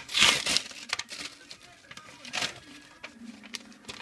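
Paper mailing envelope being torn open and rustled by hand, in short crinkling bursts, loudest about a quarter-second in and again a little past two seconds.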